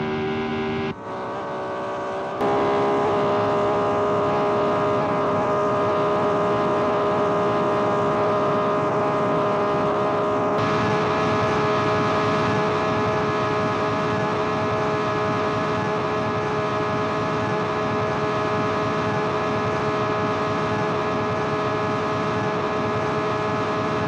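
1960s open-wheel race car's engine heard from on board at high revs. After a brief dip about a second in, the note steps up and then holds steady, brightening about ten seconds in.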